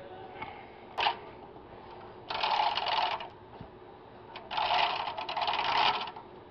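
Loose steel timing chain of a Dodge 2.7 L V6 rattling as it is handled and pulled, after a single click about a second in. The rattle comes in two bursts, about one second and one and a half seconds long.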